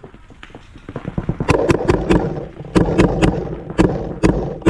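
Paintball markers firing: about ten sharp pops in quick, uneven strings, with fainter pops and clicks between them in the first second.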